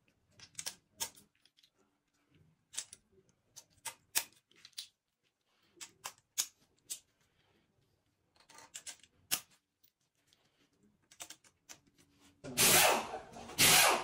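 Light, irregular metallic clicks and taps of rocker arms and other valve-train parts being handled and set in place on an aluminium cylinder head. Near the end a loud, steady hiss begins.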